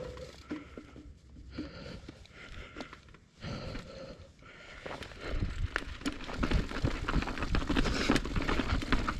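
Transition Patrol mountain bike on a rough rocky dirt trail, with the rider breathing. The sound is fairly quiet at first, then from about five seconds in the tyres and frame clatter and rattle over rough ground, louder and denser as the ride picks up speed.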